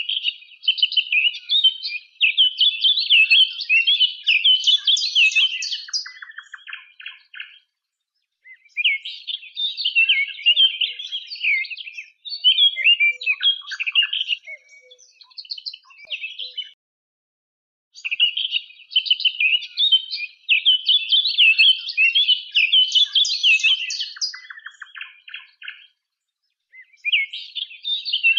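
A songbird singing: long bouts of rapid, high twittering and trills, each lasting several seconds, separated by pauses of about a second.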